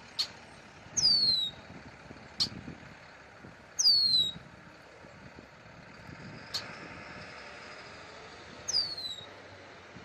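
A bird giving three clear whistles that slide downward in pitch, a few seconds apart and the loudest sounds, with short sharp chip notes in between.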